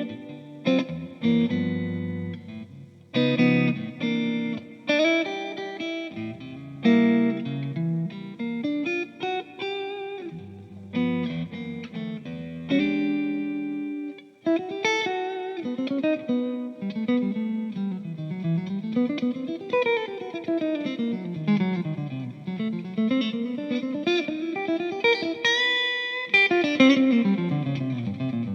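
Electric guitar played through a Kemper amp-modelling rig and its cabinet speaker. The first half is strummed chords with short stops. After the halfway point it moves to single-note lines with fast runs sweeping up and down the neck.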